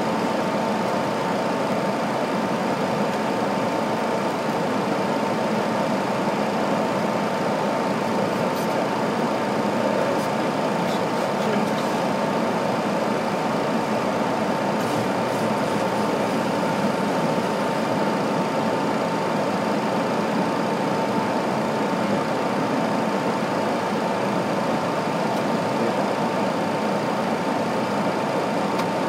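Steady flight-deck noise of a Boeing 737 descending on approach: a constant rush of airflow and engine noise with a steady high hum running through it.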